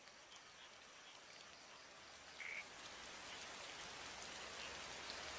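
Faint rainforest ambience: a steady hiss of rain that slowly grows louder, with scattered drips and a single short chirp of an animal call about two and a half seconds in.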